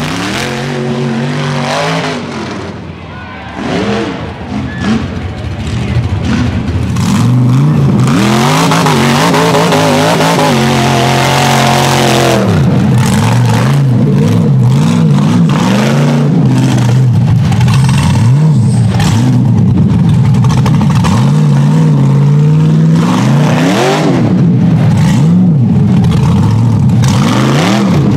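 Rock bouncer buggy's engine revving hard, its pitch rising and falling over and over as it is throttled up a steep dirt hill under load. It is quieter for the first few seconds, then loud and continuous from about a quarter of the way in.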